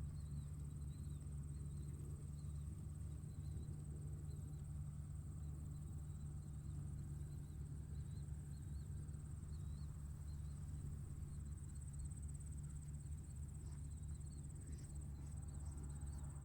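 Tractor engine running steadily with an even low hum. Insects trill steadily over it, with small repeated chirps.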